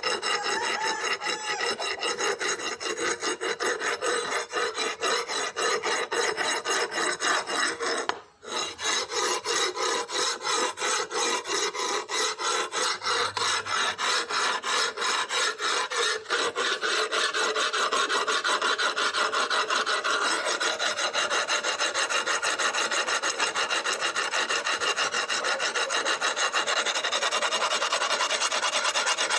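Quick, even rasping strokes of hand filing or rubbing on a surface during restoration work. The strokes break off briefly about eight seconds in, then run on and grow smoother and steadier from about seventeen seconds.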